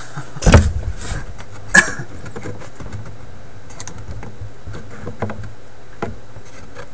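Knocks and clicks of clamps being worked loose from a wooden cabinet: one loud knock about half a second in, a sharp click just under two seconds in, then a few faint taps.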